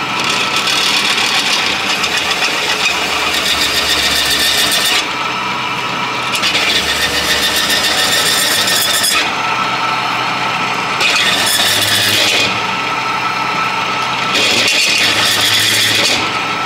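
A drill press running with a steady motor hum while its bit cuts into a metal trailing arm, drilling out a hole. The cutting comes in four passes, each with a harsh high-pitched hiss and squeal, and the motor runs on between them.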